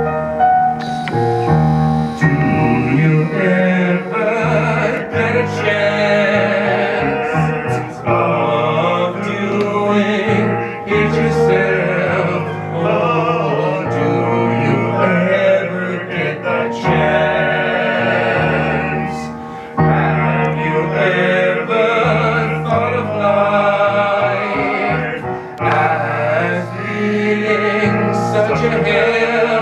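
Several voices singing an operatic ensemble number with keyboard accompaniment playing sustained piano chords, the singing phrased in lines with brief breaks between them.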